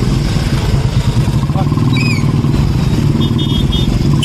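Royal Enfield Bullet motorcycle's single-cylinder engine running close by, a steady low-pitched beat as the bike rides off. A brief high chirp about two seconds in.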